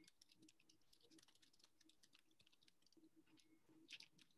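Near silence: faint room tone with many small scattered clicks.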